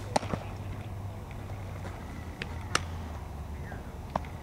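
A baseball popping sharply into a leather catcher's mitt just after a pitch, near the start, followed by a few more single glove smacks as the ball is thrown back and caught, over a steady low hum.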